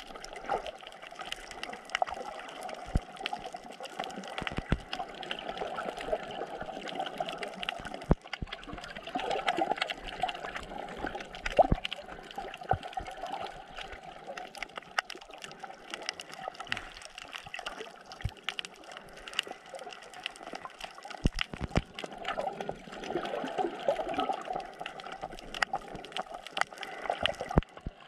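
Underwater sound picked up by a camera below the surface: a steady rush and gurgle of water, with many sharp clicks scattered throughout.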